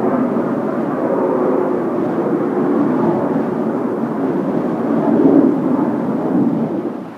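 Jet noise from Blue Impulse Kawasaki T-4 trainers' turbofan engines flying over. The sound is steady, swells about five seconds in, and falls away near the end as the jets move off.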